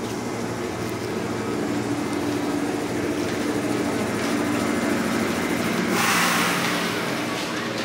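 Electric commuter train at the platform, a steady hum of several low tones. About six seconds in, a loud hiss lasts over a second.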